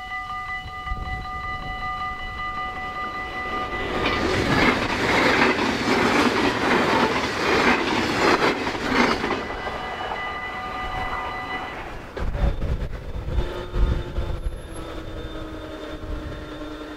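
Dutch level-crossing bells ringing steadily while an NS double-deck electric passenger train rushes past, its wheels clattering for about six seconds. The bells stop about twelve seconds in. A few knocks and a steady hum follow as the crossing booms rise.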